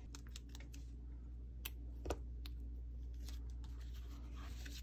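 Sticker paper being handled: scattered small clicks and crinkles as a sticker is peeled from its backing and pressed onto a paper journal page, with a sharper click about two seconds in.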